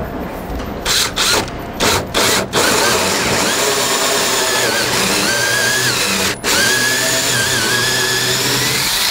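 Cordless drill boring a hole saw into a wooden interior door for the doorknob hole: a few short bursts on the trigger, then steady cutting from about two and a half seconds in, with a brief stop about six seconds in.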